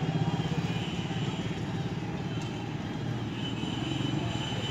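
An engine running steadily, a low, evenly pulsing drone.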